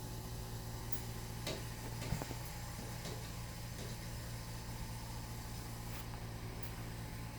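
A robin tapping and bumping against window glass as it tries to get in: a few scattered light taps, the loudest about two seconds in, over a steady low hum.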